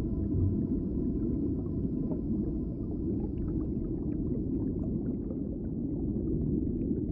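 Underwater ocean ambience: a steady low rumble of moving water with many small scattered bubble pops, thickest in the middle of the stretch.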